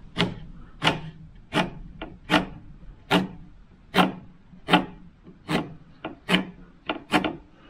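Pencil scratching hatch lines across a wooden board: about a dozen short strokes, roughly one every three quarters of a second, shading the waste area of a finger notch to be cut out.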